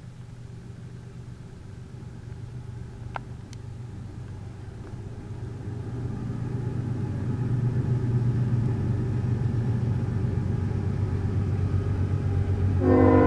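Diesel-electric road locomotive (CP GE ES44AC) leading a heavy coal train, its low engine rumble growing steadily louder as it approaches. Just before the end a chord of steady tones starts, the locomotive's horn sounding.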